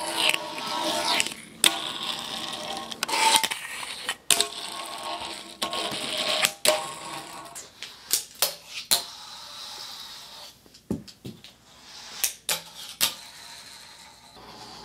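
Fingerboard wheels rolling on concrete and stone, with sharp clacks of the small deck popping and landing. The clacks come thicker in the second half as the board hits the miniature granite steps and rail.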